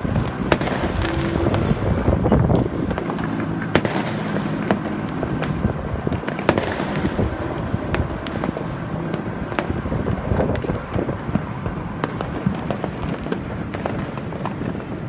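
Many fireworks going off at once: a continuous rumble and crackle of bursts, with sharp, irregular bangs standing out every second or two.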